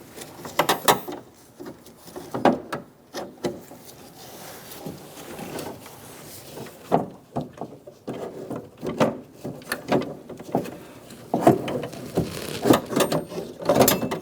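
Irregular clicks, knocks and short rattles of hard parts inside a car door as the exterior door handle reinforcement assembly is worked loose and pulled out, in clusters about half a second in, around seven and nine seconds in, and most busily near the end.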